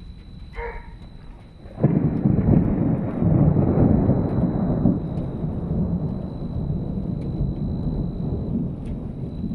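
A thunderclap breaks about two seconds in, loudest for a few seconds and then rolling on as a steady rumble, over falling rain.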